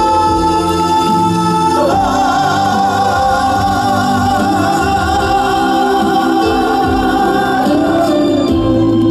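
Live band accompaniment of a slow Korean trot ballad, with long held notes that waver in vibrato.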